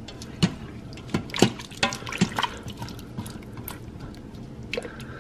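Silicone spatula stirring diced potatoes and sausage in chicken broth in a stainless steel Instant Pot inner pot: wet sloshing with irregular knocks of the spatula and potato pieces against the pot.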